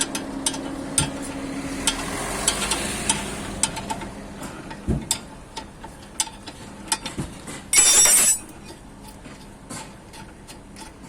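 Scattered metal clicks and clinks of hand tools working on a car's front wheel assembly, with one short loud hiss about eight seconds in.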